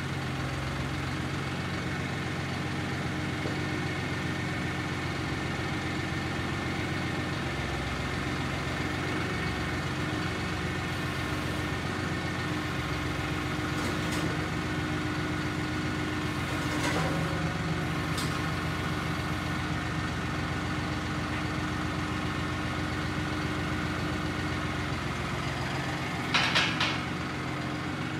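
John Deere tractor engine running steadily at idle while it carries a welding table on its front forks. There is a short, louder noise near the end.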